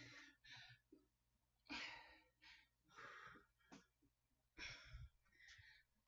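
A woman's heavy breathing from exertion during a dumbbell row set: a string of short, sharp exhales, about six in a row with short gaps between them, faint throughout.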